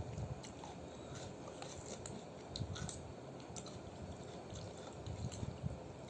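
A person chewing a mouthful of rice noodle soup, with soft low mouth sounds about once a second and scattered small clicks.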